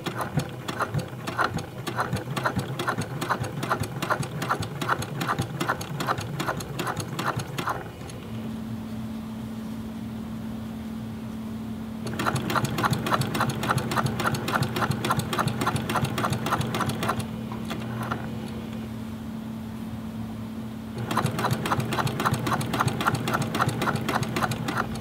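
Brother PQ1500S straight-stitch sewing machine topstitching a thick denim jeans hem. It runs in bursts of rapid, even needle clatter with quieter, slower stretches between them, and a steady hum comes in underneath about eight seconds in.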